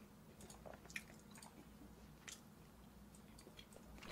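Faint chewing of braised pork trotters (jokbal), with a few soft, wet clicks of the mouth.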